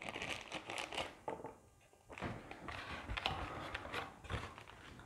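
Crinkling of a small plastic bag of foam darts being handled and opened, then the rustle and scrape of a cardboard box insert being lifted out. Irregular soft crackles, with a brief pause about two seconds in.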